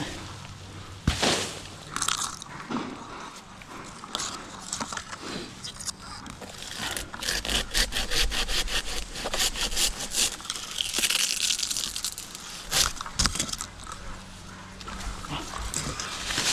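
Hand pruning saw cutting through palm fronds in quick, even strokes about four a second, with scattered cracks and scraping of the dry fronds.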